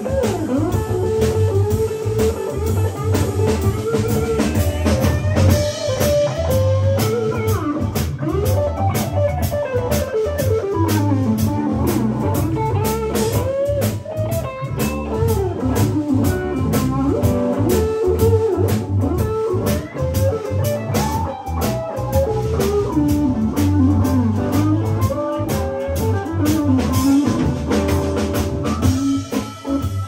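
A live band playing: an electric guitar lead line with bent notes over a drum kit's steady beat and a bass guitar.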